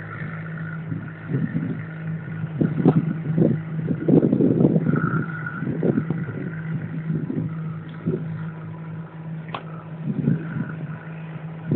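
Small river ferry boat's engine droning steadily as the boat motors away across the river, with irregular louder rumbles rising and falling over the hum.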